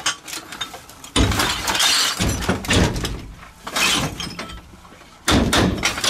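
Full plastic rubbish bags of collected litter being thrown one after another onto a truck bed, several crashes as they land, with the litter inside rattling and crunching.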